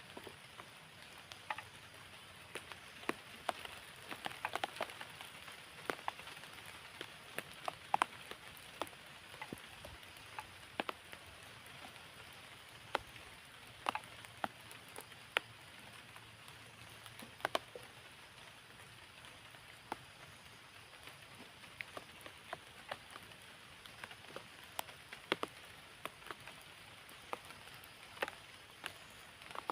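Rain falling, a steady hiss with irregular sharp drips tapping on surfaces, a few each second.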